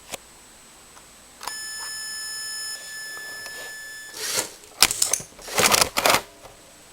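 An electronic beep tone from the target range's controller, held for about two and a half seconds, followed by several short, loud rattling bursts.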